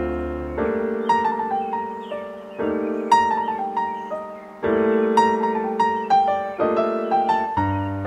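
Background piano music: held chords that change about every two seconds, with a melody of single notes above them.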